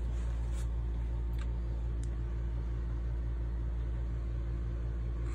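RV air conditioner running: a steady low hum that does not change.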